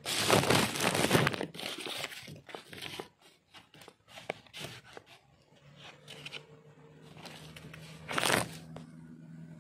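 Foil food wrapper crinkling and rustling as it is handled and opened, loudest in the first three seconds, with scattered small crackles after and another short burst of rustling near the end.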